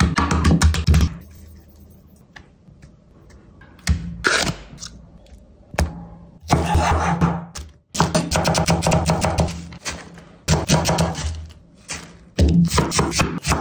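Ingredients dropped into a nonstick pan in a series of separate bursts: raw goat meat pieces knocking in at the start, then dollops of curd, spice powders and paste, and near the end handfuls of fresh mint and coriander leaves falling in.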